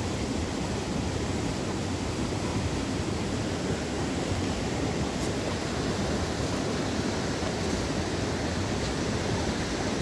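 Steady, even rushing of running water, with no breaks or changes.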